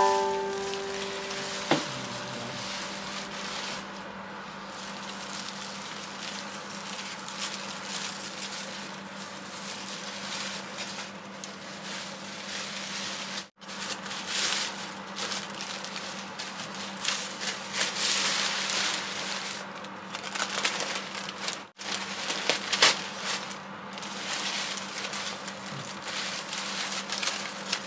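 Thin plastic carrier bags and paper rustling and crinkling in uneven bursts as a potted plant is unwrapped by hand, over a faint steady low hum.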